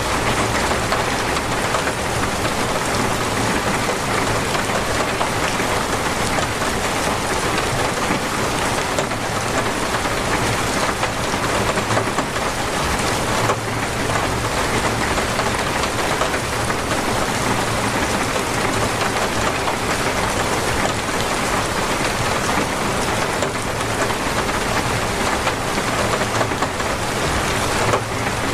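Torrential rain pouring down and pattering on surfaces, a dense, even hiss that holds steady throughout.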